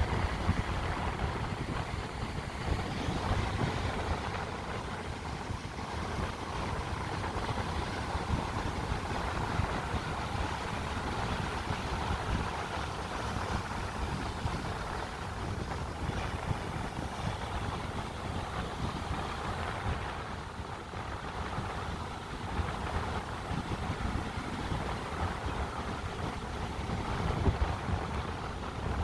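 Wind buffeting the microphone over the steady wash of sea surf, with no clear breaks.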